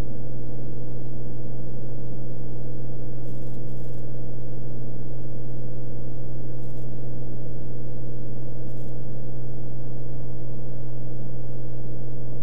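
Steady drone of a Beechcraft Bonanza F33's engine and propeller in flight, heard from inside the cabin, holding one deep, unchanging pitch.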